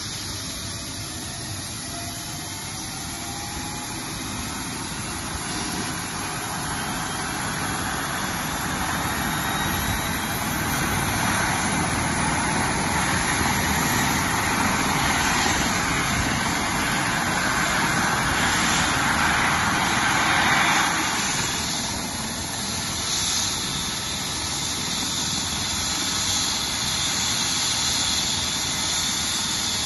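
Airbus H135 P3 helicopter's twin Pratt & Whitney PW206B3 turboshaft engines and main rotor running up on the ground before take-off. A turbine whine rises in pitch and the rotor noise grows louder over the first dozen seconds, then holds steady.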